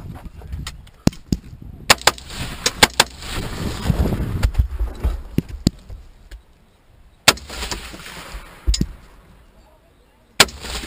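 A string of rifle shots from a scoped AR-style rifle fired from inside a car. Several come close together in the first three seconds, then single shots follow a second or more apart.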